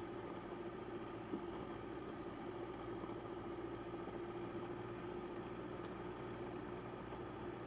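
Piper Cherokee's piston engine running steadily at low power, a constant hum, with one short click about a second in.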